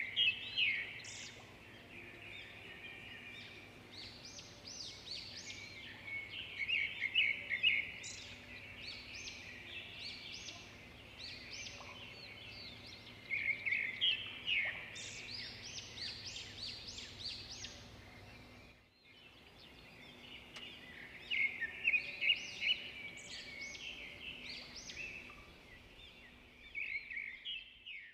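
Birds chirping and chattering in repeated bursts of quick high calls, over a faint steady hum that stops about two thirds of the way through.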